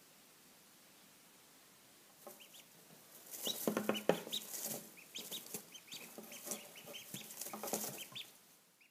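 Quiet at first. About two seconds in, newly hatched ducklings start peeping in many short, high chirps while scrambling about in dry straw, with rustling and scuffling that is loudest a second or so later.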